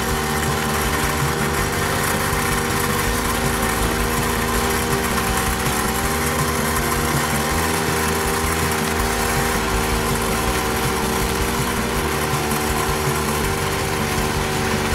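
Kioritz AZ850 spider mower's small engine running steadily at a constant speed while it cuts weeds.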